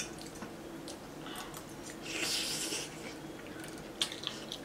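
Quiet eating of spicy instant noodles: faint clicks of forks and mouths, with one hissing breath about two seconds in and a sharper click near the end.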